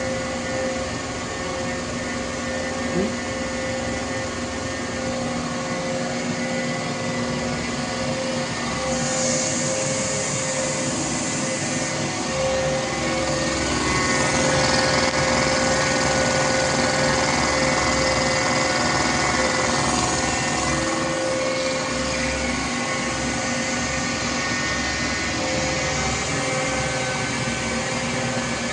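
Danfoss H1P045 axial piston hydraulic pump running on a test bench after repair: a steady machine whine with several held tones over a hiss. The hiss grows from about nine seconds in, and the sound swells a little in the middle before settling.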